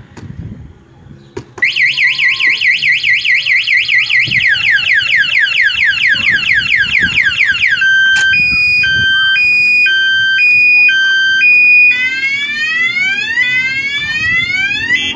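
Motorcycle anti-theft alarm set off about a second and a half in, stepping through its tone cycle: fast repeating electronic sweeps, then a slow high-low two-tone, then rising whoops. It is loud throughout.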